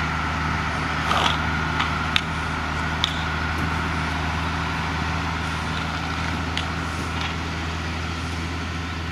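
Fire truck's diesel engine running slowly with a steady low hum as the truck crawls forward laying out a fire hose behind it. A few sharp knocks come in the first three seconds.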